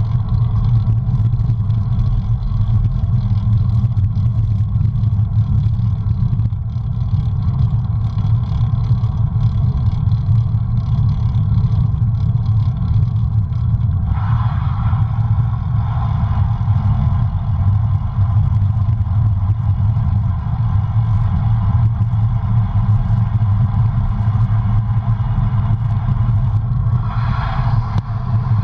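Wind rushing over the microphone of a camera mounted on a moving bicycle, a steady low rumble mixed with tyre noise on the asphalt. A brighter hiss swells briefly about halfway through and again near the end.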